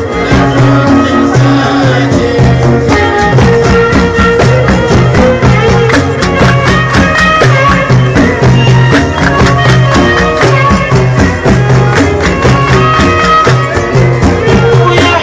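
Traditional Touat folk music played live: a violin carries a melody over a steady rhythm of hand-struck frame drums and tambourine, with a repeating low pulse.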